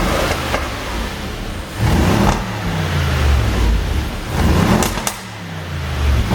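Audi RS7's 4.0 TFSI twin-turbo V8 being blipped, revving up and falling back twice, with a third rev near the end. A couple of sharp exhaust pops come on the overrun, from a pop-and-crackle tune.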